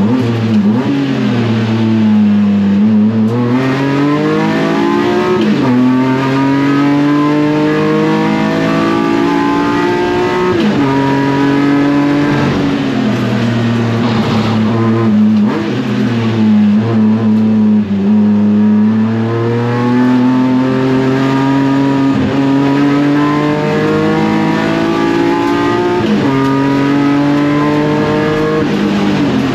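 BMW E36 racecar's S54 inline-six running hard on track. Its revs climb steadily, drop abruptly at each upshift, and fall back under braking, lap after lap.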